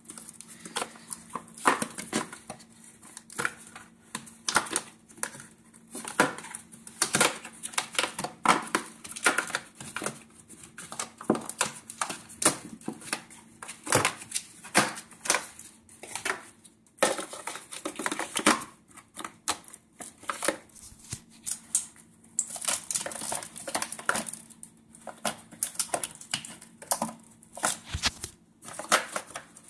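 Hands pulling wiring-harness cables and plastic connectors out of a plastic ECU box: irregular clicks, taps and rattles of plastic, with rustling between them.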